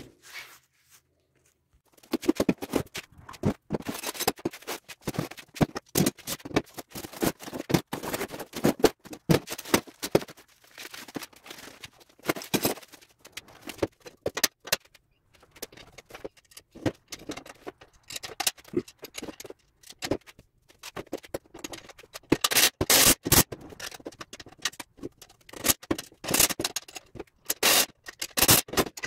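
Irregular scraping and scratching with many sharp clicks, which begins about two seconds in: hands-on handling of a tine dethatcher's parts during assembly.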